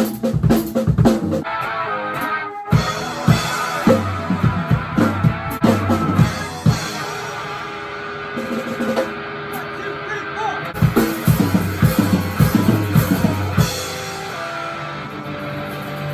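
Music with a drum kit and guitar: bass drum and snare hits over sustained guitar notes, with a brief break about two and a half seconds in.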